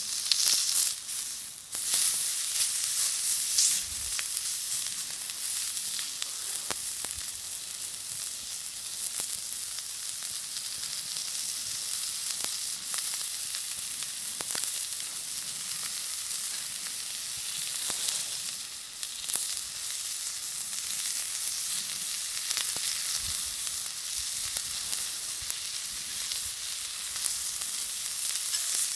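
Meat frying on an iron griddle plate over a campfire: a steady sizzle with scattered small pops and crackles.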